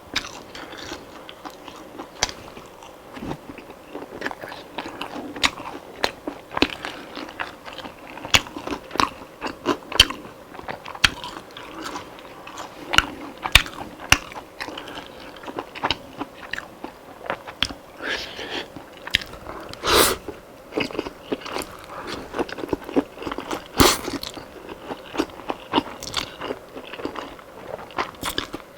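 Close-miked biting and chewing of crispy fried chicken: a dense run of sharp, crackly crunches. Two louder crunches stand out in the last third.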